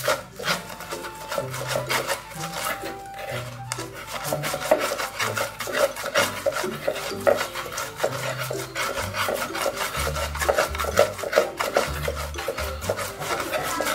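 Stone pestle (ulekan) grinding against a shallow cobek mortar, crushing chillies and shrimp paste into sambal: a fast, continuous run of rough scraping and grating strokes.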